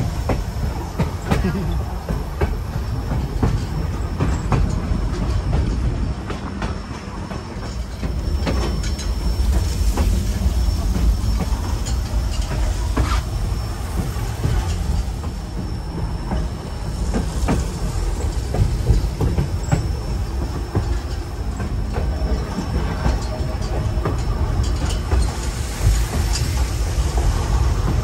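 Narrow-gauge White Pass & Yukon Route train rolling along the track: a steady low rumble with irregular clacks from the wheels on the rails and a faint, thin, steady high whine.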